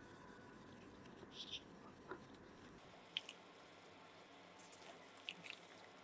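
Near silence with faint handling noise: soft rubbing and a few light clicks as gloved hands wipe and turn a brass cup in a cloth.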